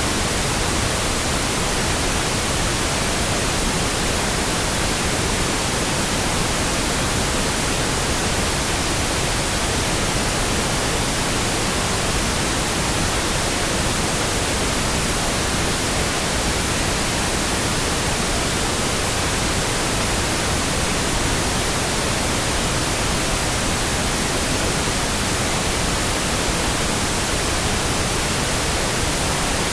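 Steady pink noise: an even, unchanging hiss spread across the whole range from deep rumble to high hiss, with no tones or breaks.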